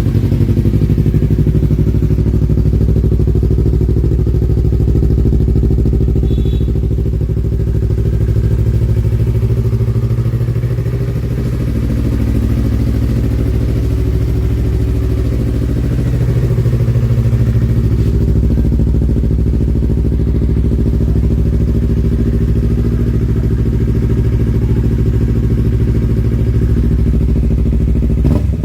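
Yamaha MT-03's 321 cc parallel-twin engine idling steadily, with only slight rises and dips in level.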